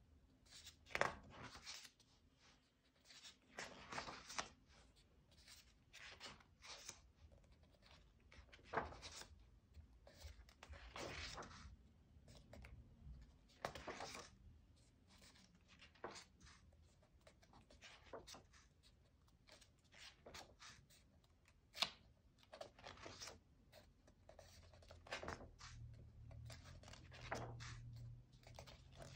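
Quiet paper rustling as the pages of a coloring book are turned one after another, a swish every few seconds with hands sliding over the paper, and one sharper tap about two-thirds of the way through.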